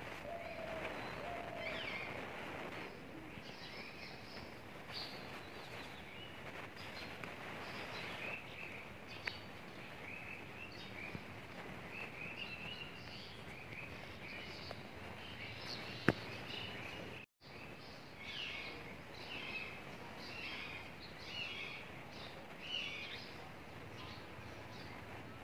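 Birds chirping over a steady background hiss: many short, high chirps with quick sweeps, repeated throughout. A sharp click about two-thirds in, and the sound cuts out for a moment just after.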